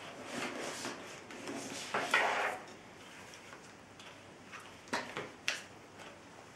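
Padded nylon camera sling bag being handled: fabric rustling and scraping as a DSLR with a long zoom lens is drawn out of its side pocket, loudest about two seconds in, then two sharp clicks about five seconds in.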